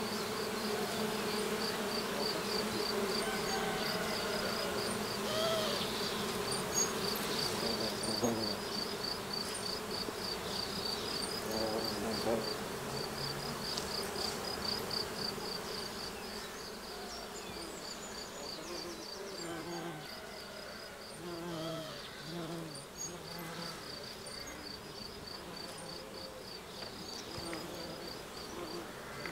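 Bees buzzing: a steady low hum for the first half, then shorter buzzes coming and going as bees fly past. A fast, even, high-pitched chirping runs throughout alongside it.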